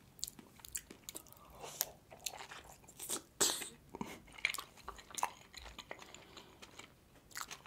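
Close-miked eating of juicy steamed meat dumplings (manti): wet biting, chewing and mouth sounds, a string of short, irregular clicks and smacks.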